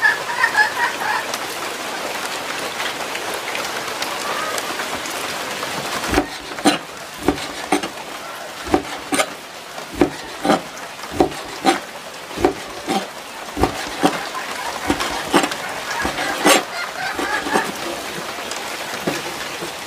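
A steady hiss throughout. From about six seconds in, a run of sharp knocks with a dull thud, roughly two a second, lasts about ten seconds and then stops.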